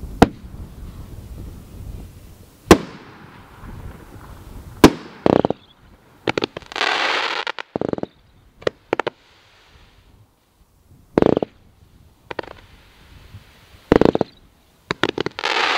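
A 500-gram multi-shot consumer fireworks cake firing: sharp reports going off every second or two, some of them followed by a spell of crackling from the crackle effects.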